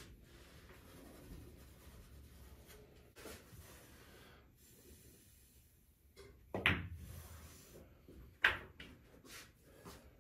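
Pool shot: a sharp clack as the cue strikes the cue ball, which hits the object ball almost at once, then about two seconds later a second, louder sharp clack as the object ball is pocketed. A few faint knocks come before the shot.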